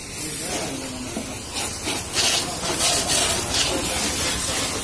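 Jet of water hissing as it sprays onto a car's body panels during a wash, growing louder in surges from about two seconds in as the spray sweeps across the paint.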